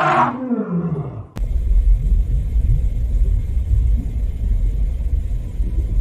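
An African elephant's trumpet call tailing off with a falling pitch over about the first second. Just over a second in it cuts abruptly to a steady low rumbling noise for the rest.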